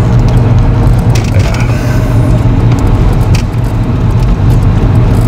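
Steady low rumble of a moving car heard from inside the cabin, with a few short clicks.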